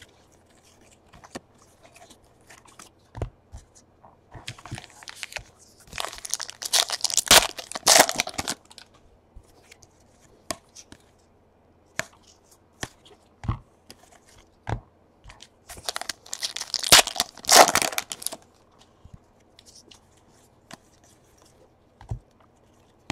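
Trading-card pack wrappers being torn open and crinkled, in two bursts of a couple of seconds each, between light clicks and taps of cards being handled.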